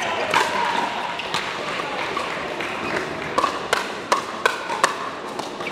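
Pickleball paddles striking a plastic pickleball in a doubles rally, a sharp hollow pock with each hit. A few hits are spaced about a second apart, then about five come in quick succession in the last two seconds during a fast volley exchange at the net.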